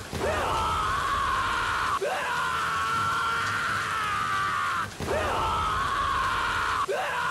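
A man's high scream, looped: one long held cry after another, each opening with an upward swoop and breaking off after two to three seconds, four times over.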